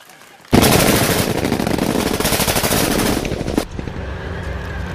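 A sustained burst of rapid machine-gun fire lasting about three seconds, starting half a second in and cutting off suddenly. After it comes the low, steady running of a Type 96 wheeled armoured personnel carrier's diesel engine.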